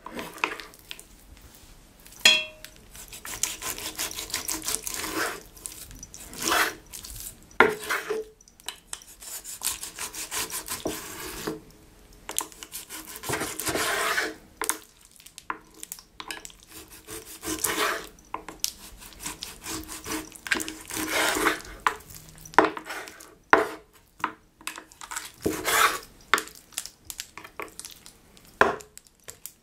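Kitchen knife sawing through raw pork neck on a wooden cutting board: irregular rasping strokes, with the blade now and then knocking on the board. The sharpest knock, with a short ring, comes about two seconds in.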